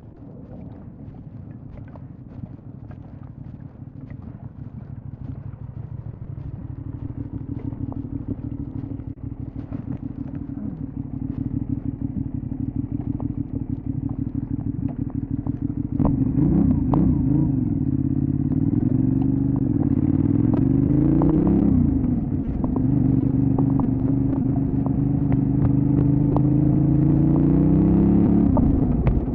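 Benelli Leoncino 800 Trail's 754 cc parallel-twin engine running and growing steadily louder. From about halfway it is much louder, its pitch rising and falling with the revs as it accelerates and changes gear. Near the end a long rising pull is cut off by a gear change.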